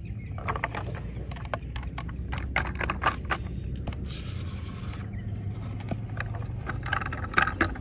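Hands handling a model tipper truck: irregular scrapes, rubs and clicks of the model's body and wheels against the hands. There is a steady low rumble underneath and a brief hiss about four seconds in.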